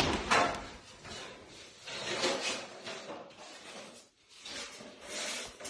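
A few short, rough sliding noises about two seconds apart, from handling or working something by hand.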